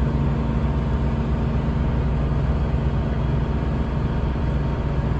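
Tour boat's engine running steadily under way, a low even drone heard on board.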